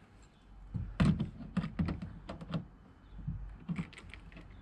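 Screwdriver driving the screws of a fishfinder mount into a plastic kayak deck: an irregular run of sharp clicks and light knocks, busiest from about a second in.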